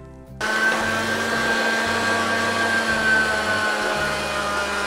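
Electric meat grinder starting about half a second in and running steadily with a motor whine, grinding pieces of pork fat through a coarse plate.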